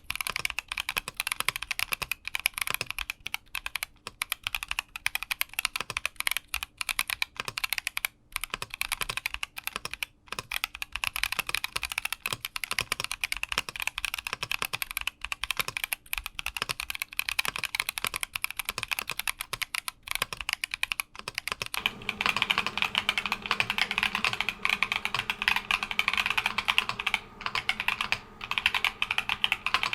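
Fast, continuous typing on a Keychron Q60 aluminium-cased mechanical keyboard, with a dense run of key clacks. About 22 seconds in, the sound turns fuller, deeper and a little louder.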